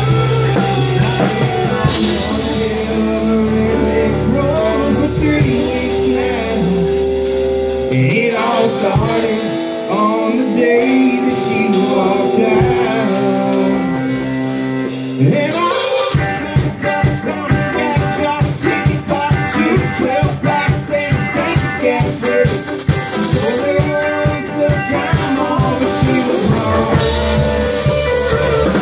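A rock band playing live: drum kit, guitar and a low bass line, with a man singing into a microphone. About eight seconds in the bass drops out for a sparser stretch of guitar and voice, and about sixteen seconds in, after a drum fill, the full band comes back in with the drums driving.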